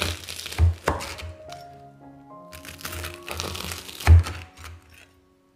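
A knife cutting down through crusty baked bread topped with melted cheese: two bouts of crunchy crackling as the toasted crust gives way, each ending in a knock of the blade on the wooden board, the second knock near the end the loudest.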